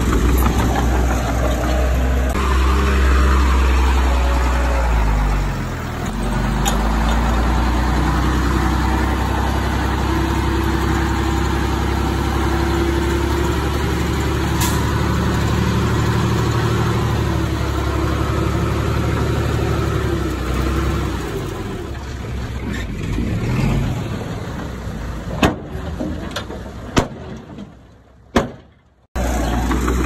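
Diesel engine of heavy earth-moving machinery running under load, its pitch dipping and rising again about five seconds in, then holding steady. It fades toward the end with a few sharp clanks and drops out abruptly for a moment just before the end.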